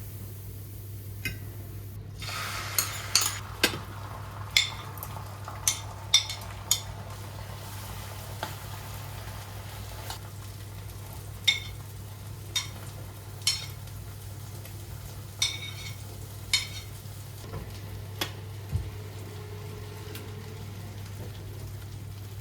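A utensil clinking and scraping against a pan over and over while food sizzles lightly, the sizzle clearest in the first several seconds, over a steady low hum.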